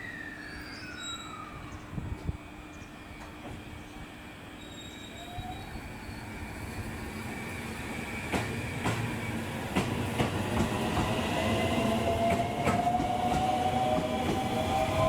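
A passenger train drawing near, its sound growing steadily louder over the second half. Wheels click over rail joints and a long high squeal grows stronger near the end.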